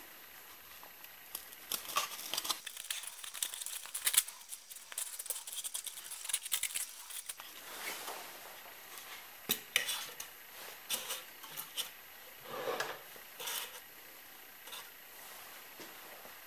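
Hands handling a shaped piece of blue foam: rubbing and crinkling with irregular light clicks, busiest in the first half and sparser after.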